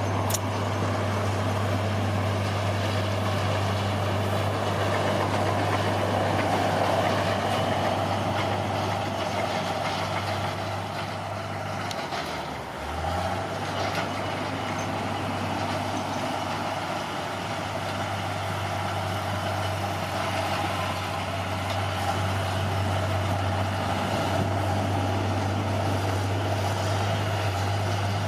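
Bulldozer's diesel engine running steadily under load, its revs dipping briefly and picking up again about halfway through.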